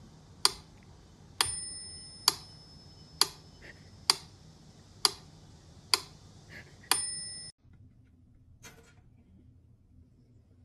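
Eight sharp, evenly spaced ticks just under a second apart, a couple with a brief high ringing tone, stopping abruptly about seven and a half seconds in.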